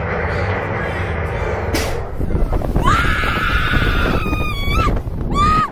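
Wind rushing hard over the slingshot ride's seat-mounted camera microphone as the ride launches, with a low rumble. About three seconds in a woman lets out a long, high scream, followed by shorter screams near the end.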